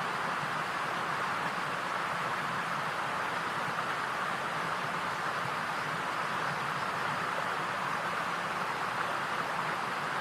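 A steady, even hiss-like noise with no breaks, pitch or separate events.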